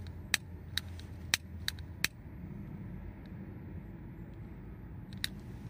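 A pipe being relit with a lighter: a series of short, sharp clicks, about six in the first two seconds and one more near the end, from the lighter and the puffing on the pipe stem, over a steady low hum.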